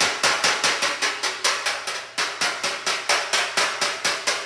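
Body hammer rapidly tapping a steel car fender held against a dolly ('dinging on the dolly'): quick, even metallic taps, about five a second, each with a short ring. The taps bring the high spot down and the low spot up as the panel is straightened.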